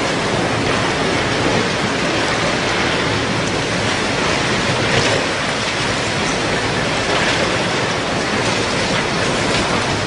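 A flood surge sweeping debris through streets: a loud, steady rushing noise with no break.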